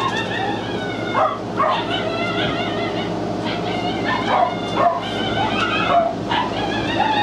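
A dog whining and yipping in high, wavering cries that come one after another.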